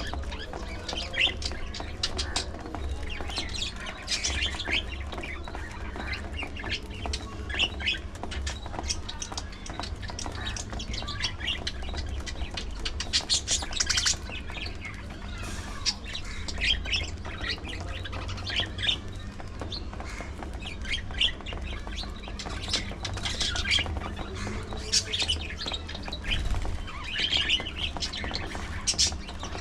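A flock of budgerigars chirping and squawking, with many short, sharp calls overlapping throughout, over a steady low rumble.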